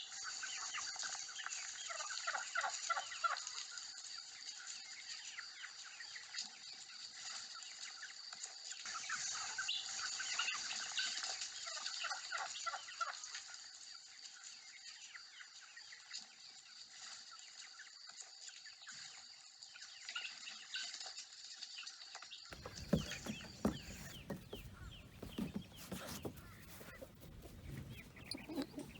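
Poultry calling, turkey gobbles among clucking and chirping, dense and continuous. About three-quarters of the way through it cuts off and is replaced by a rougher sound of knocks and rustling.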